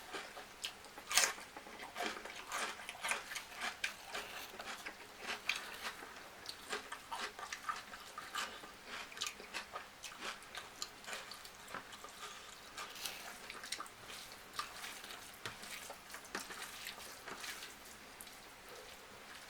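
Close-miked eating: chewing and biting with a steady run of wet mouth smacks and small clicks, the sharpest about a second in.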